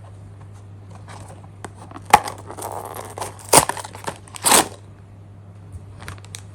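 Plastic packaging crinkling and tearing as a blind-box mascot bag is opened, with a sharp crack about two seconds in and two louder rustles a little later.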